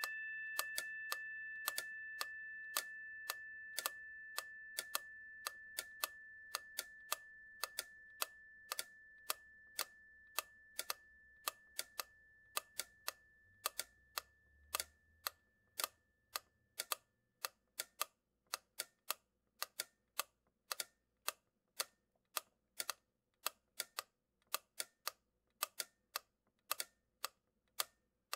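Regular ticking, about two ticks a second, while a bell tone slowly fades away over the first half.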